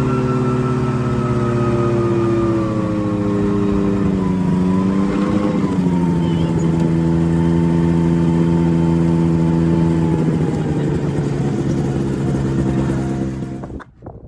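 Ultralight aircraft engine and propeller running steadily; the engine note drops a little about four seconds in, then holds at the lower pitch. It stops suddenly near the end.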